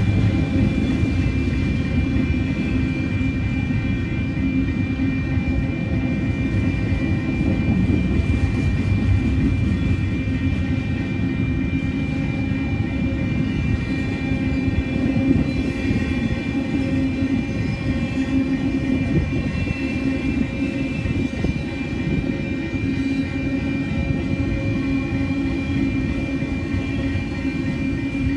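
Empty Union Pacific intermodal freight cars rolling through a crossing: a steady low rumble and clatter of steel wheels on rail, with a thin steady high tone riding over it.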